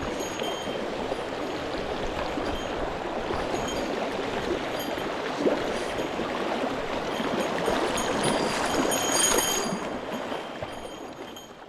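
Mountain stream water rushing steadily over rocks, with faint short high-pitched peeps recurring above it; the sound fades out near the end.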